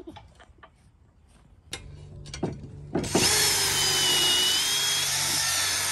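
A few light knocks, then a power drill runs steadily for about three seconds with a high whine, driving into the wood of a bench.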